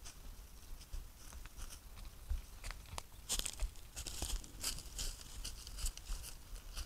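Red deer hinds grazing and stepping through dry leaf litter and twigs right beside the camera: irregular crunching and rustling, getting busier from about three seconds in.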